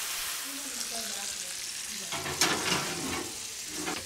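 Lemon-butter sauce sizzling steadily in a hot cast iron skillet of seared cod fillets. A few knocks and clatters about two seconds in, as the skillet goes onto the oven rack.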